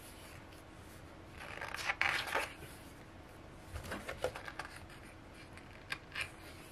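Paper rustling as booklet pages are handled and turned, with a few small taps and clicks about four seconds in and two short rustles near the end.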